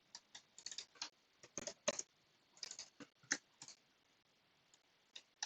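Computer keyboard and mouse being used: a run of light, uneven key and button clicks for about three and a half seconds, then a pause and a single click near the end.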